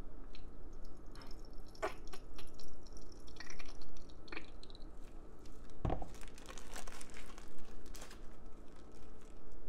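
Plastic zip-top bag crinkling while thick liquid hand wash is squeezed out through its cut corner into a plastic bottle, with wet squishing and scattered clicks of plastic; a single thump about six seconds in.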